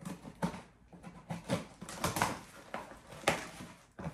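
Small cardboard box being opened: a box cutter slitting the packing tape, then the flaps pulled open, making irregular scraping, tearing and crackling of cardboard, with one sharper crack a little after three seconds in.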